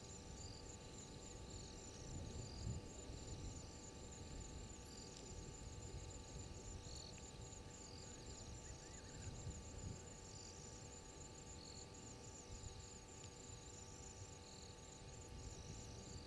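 Night insects calling: a continuous, rapid, high-pitched trill, with a second insect chirping every second or two a little lower in pitch. Underneath is a faint steady electrical hum.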